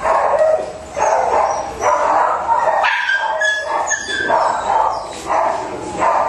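Dog barking repeatedly in short, high yaps, about two to three a second.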